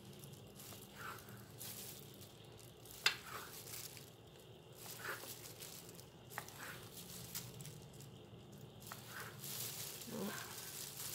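Cleaver slicing young coconut flesh into thick strips on a wooden cutting board: soft, scattered knocks of the blade meeting the board, the sharpest about three seconds in, over a faint steady background hum.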